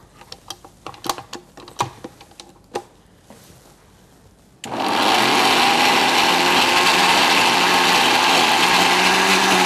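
A few light clicks and knocks as the jar of an electric mixer-grinder is handled and set on its base. About four and a half seconds in, the motor switches on suddenly and runs steadily, grinding corn kernels.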